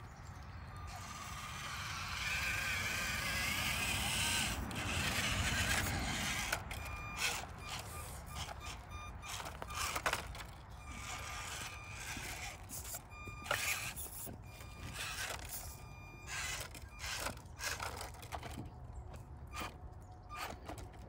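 Small electric RC scale crawlers working over rocks. The motor's high whine comes and goes in short spurts of throttle, while tyres and chassis click and scrape against the stones. A rushing noise swells over the first few seconds.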